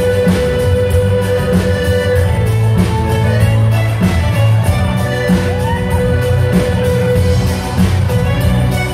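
Live band dance music, amplified through PA speakers, led by an accordion over drums and bass, with a steady beat.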